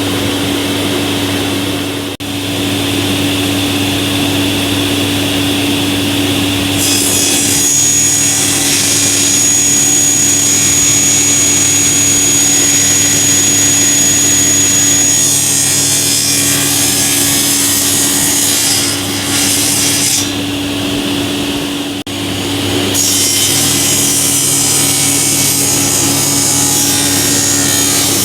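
Industrial sliding table panel saw with main and scoring blades running with a steady hum, cutting through a board twice: a harsher, higher sawing noise about a quarter of the way in that lasts several seconds, and again near the end.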